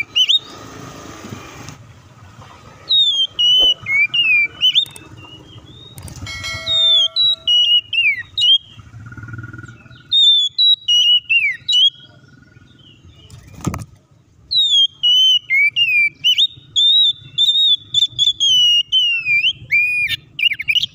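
Oriental magpie-robin (kacer) singing persistently: loud whistled phrases of sliding, mostly falling notes, delivered in about five bouts with short pauses between, the longest bout filling the last six seconds.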